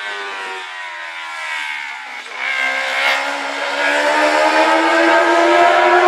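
Racing sidecar outfit's 600cc four-stroke engine running at high revs. Its pitch falls over the first two seconds, then about two seconds in it picks up again, climbing in pitch and growing louder as it accelerates. It is loudest at the very end, where it breaks off abruptly.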